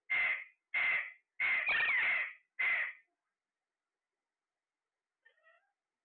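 Alexandrine parakeets calling: five loud calls in quick succession over about three seconds, then a brief faint chatter near the end.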